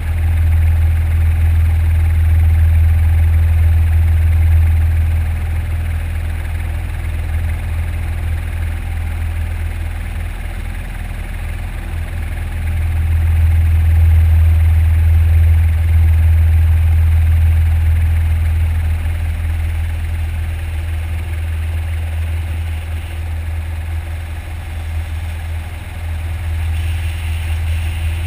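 Eurocopter EC120B helicopter heard from on board in flight: a steady low drone of rotor and turbine, swelling louder about a second in and again around halfway.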